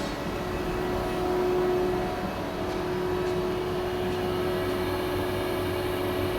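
CNC lathe running steadily, a constant machine hum with a steady whine.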